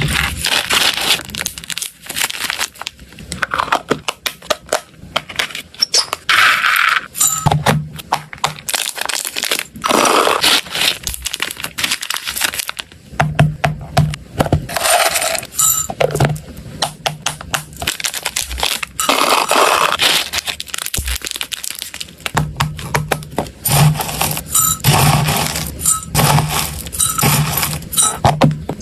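Dry hamster food pellets being scooped and poured with a plastic spoon, rattling and clicking against plastic tubs and a glass bowl. Plastic packaging and a clip-lid food container are handled in between, giving rustles and sharp clicks.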